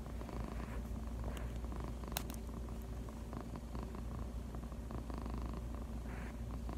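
Tuxedo cat purring steadily, with a single sharp click about two seconds in.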